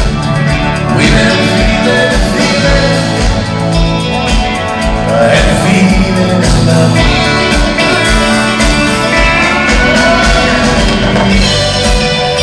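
Live country band playing with a steady drumbeat and electric guitars.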